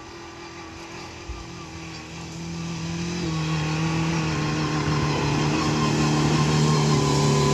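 Off-road SUV engine pulling under load on a hill climb, growing steadily louder from about two seconds in, its pitch stepping up a little about three seconds in.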